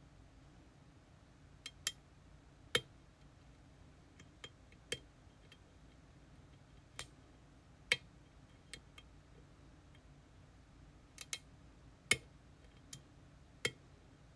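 Lock picks working in an EVVA Dual dimple lock cylinder: about a dozen sharp, small metallic clicks at irregular intervals, with the loudest about three, eight and twelve seconds in.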